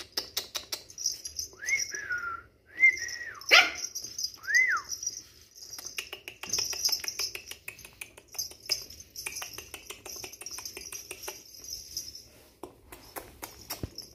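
Black Shih Tzu puppy giving three short, high yips in the first five seconds, over rapid clicking and tapping as it plays with a rubber slide sandal on the floor.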